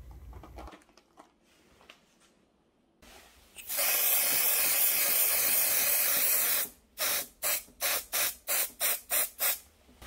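Aerosol spray sunscreen hissing from a small can in one steady spray of about three seconds, starting a little past a third of the way in. It is followed by a quick run of about ten short swishes, three or four a second.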